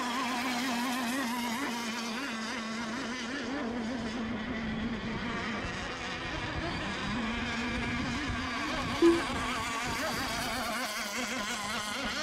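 Several radio-controlled racing boats' engines buzzing at high revs, their pitches wavering and overlapping as they run the course. A short electronic beep sounds about nine seconds in.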